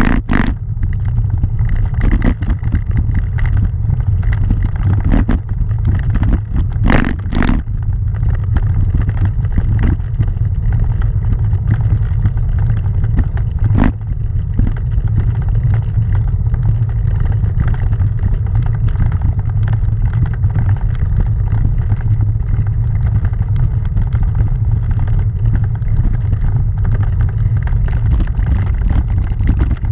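Steady low rumble of riding up a cobblestone road, with a few brief knocks about seven seconds in.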